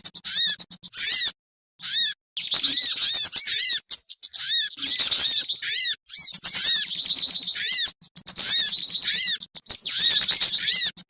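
Bird-lure recording of small songbirds calling: loud, high, arching chirp notes repeated about three times a second, mixed with dense bursts of rapid twittering, with a brief pause under a second in.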